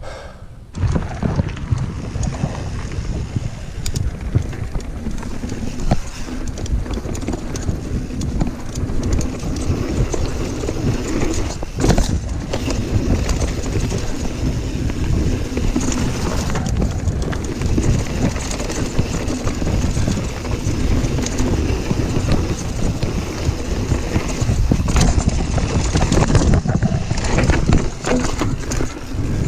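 A YT Jeffsy mountain bike ridden fast down a dirt woodland singletrack: a constant rumble of tyres on dirt and a rattling frame and chain, with wind buffeting the microphone. The noise starts abruptly about a second in, and sharp knocks come now and then as the bike hits bumps and roots.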